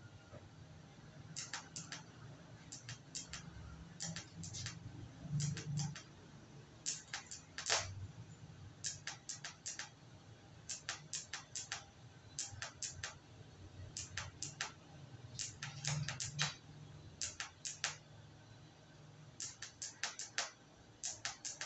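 TIG welding arc on sheet metal, crackling in quick clusters of three or four sharp ticks about once a second, over a low steady hum.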